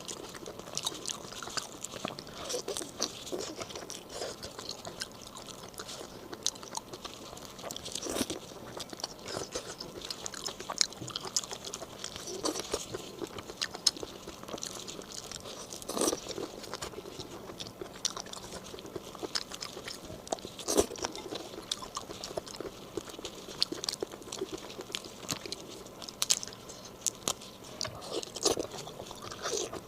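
Close-miked eating: a person biting and chewing food, with a dense run of small crisp clicks and about half a dozen louder bites scattered through.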